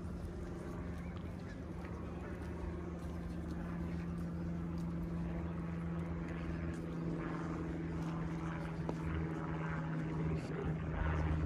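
A steady engine drone holding one pitch over a low rumble.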